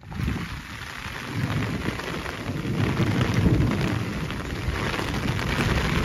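Heavy rain pouring down, growing louder about a second and a half in.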